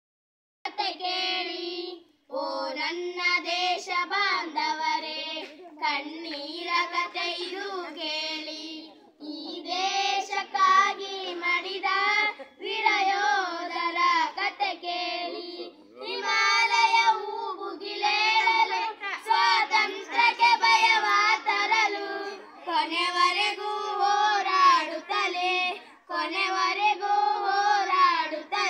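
A group of children singing a Kannada patriotic song together in unison, without accompaniment, in sung phrases of a few seconds separated by short breaths.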